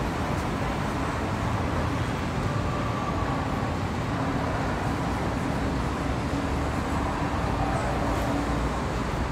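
Steady city-street ambience: a continuous wash of traffic noise.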